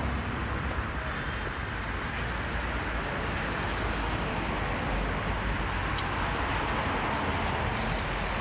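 Steady road-traffic ambience on a busy city street: a continuous low rumble and hiss of passing vehicles, with a few faint clicks.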